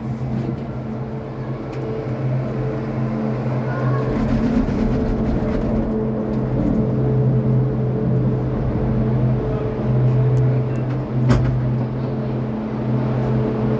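Cable car gondola running into a station: a steady mechanical hum, with a rumble that grows louder from about four seconds in as the cabin moves through the station machinery. A single sharp click near the end.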